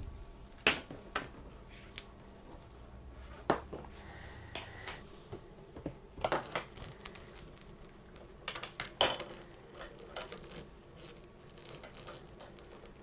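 Light metallic clicks and clinks, scattered irregularly: the faucet's hardware being handled while the washer and gasket are fitted onto the base of a pull-down kitchen faucet.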